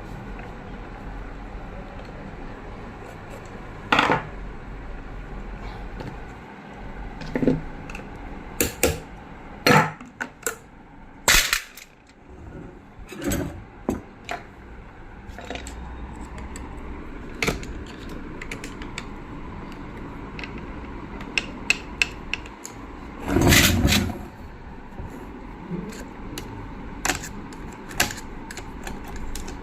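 Irregular sharp metal clicks, taps and knocks of tools and parts being handled as a sewing machine is opened up for service, with a longer clatter about two-thirds of the way through.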